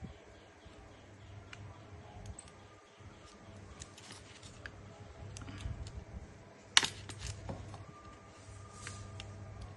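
Small metal tools and parts being handled on a workbench: scattered light clicks and taps, with one sharp click about seven seconds in, over a low steady hum.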